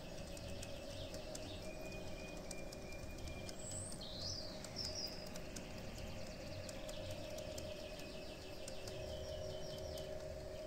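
LGB garden-scale model train running on outdoor track: a steady motor hum with a quick, even series of clicks as the wheels pass over the rail joints. A bird chirps briefly about four seconds in.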